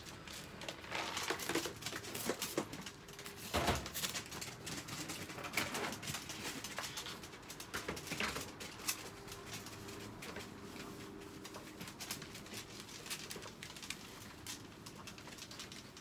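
Chihuahuas whining softly in wire crates, with scattered clicks and rustles throughout from paws, the crate wire and a plastic tarp underfoot.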